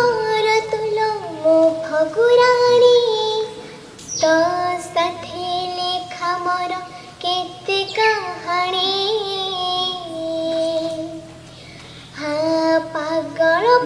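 A young girl singing solo and unaccompanied, in long held notes that slide between pitches, with a brief pause near the end.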